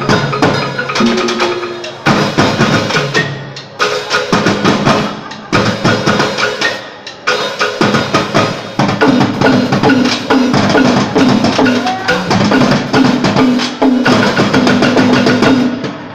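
Live percussion ensemble playing a fast, dense rhythm on congas, a hand drum, snare and other drums, over a repeating low pitched figure. The group drops back several times and comes back in with a loud accented hit.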